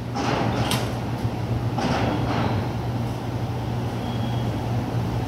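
Steady low drone of a car ferry's engines under a rushing noise of wind and water that swells now and then, with the ferry getting under way from the pier.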